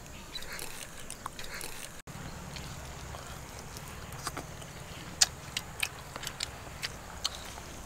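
Someone eating mutton curry with the hands: biting and chewing meat off a leg piece, with a few short, sharp mouth smacks and clicks, most of them between about five and seven seconds in, over a faint steady low background.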